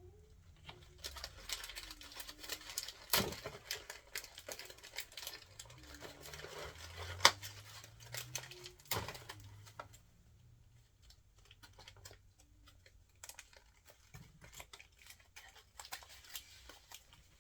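Small plastic toy packaging being handled and unwrapped: rustling and crinkling with scattered clicks and taps, the sharpest about 3 and 7 seconds in.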